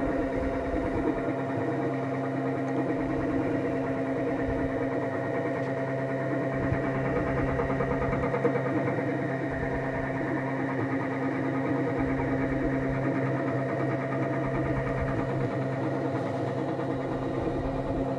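Stepper motors of a homemade CNC router driving the gantry along its Y axis at a constant 1680 mm/min feed: a steady mechanical hum and whine of unchanging pitch.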